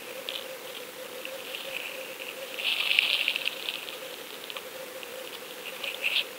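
Underwater crackling and fizzing picked up through a fishing camera's waterproof housing, over a steady hum; the crackle grows louder about three seconds in.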